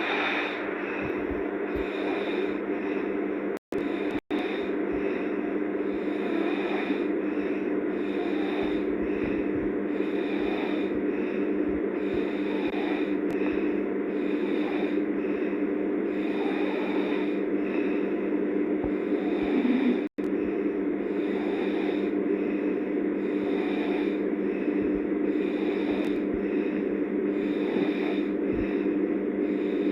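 A person snoring hard in deep sleep, over a steady hum.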